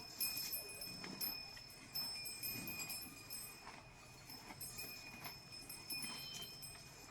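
Faint jingling and ringing, as of cattle bells, with scattered knocks and clicks from cattle moving about.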